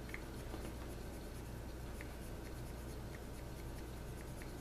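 A pipe cleaner being worked through the shank of a tobacco pipe: faint scratchy rubbing with scattered soft ticks, over a steady low hum.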